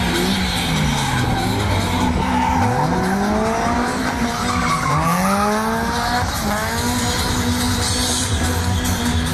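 Drift car's engine revving hard, its pitch dropping and climbing again several times, with the tyres squealing as it slides.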